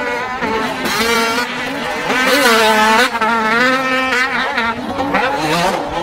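Motocross dirt bike engine revving hard, its pitch climbing and dropping several times as the throttle is worked.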